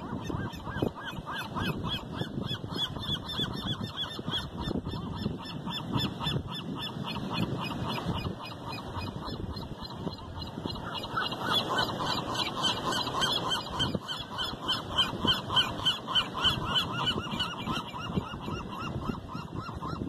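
A flock of gulls calling: a long run of short, evenly repeated honking calls, about two to three a second, louder from about halfway through.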